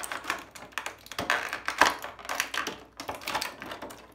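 Thin clear plastic packaging tray crackling and clicking as small toy figures are pried and pulled loose from it, a quick irregular run of clicks with the loudest snap a little under two seconds in.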